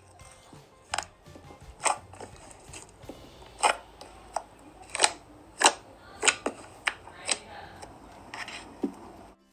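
Slime being squeezed and played with by hand, giving sharp wet clicks and pops at irregular intervals, about a dozen in all.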